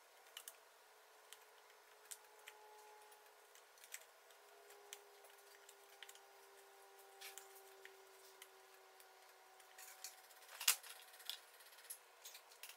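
Faint scattered clicks and small taps of a marquetry knife (tranchet) and small sawn-veneer pieces being picked up, pried and pressed into glued cavities, with a louder cluster of clicks about eleven seconds in.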